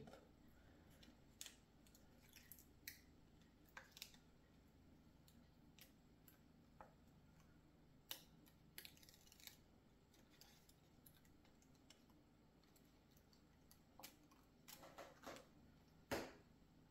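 Near silence broken by faint scattered clicks and a couple of brief soft rustles: small plastic model parts and a sticker sheet being handled on a workbench.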